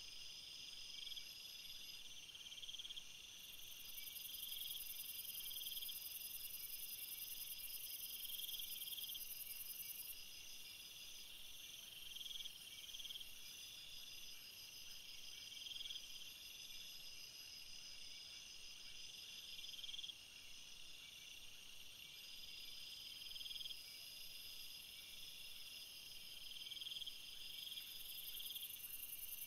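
A faint chorus of high-pitched chirping insects, several overlapping pulsing trills that start and stop every second or so.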